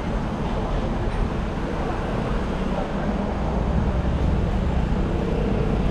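Steady road traffic noise from cars passing on a city street.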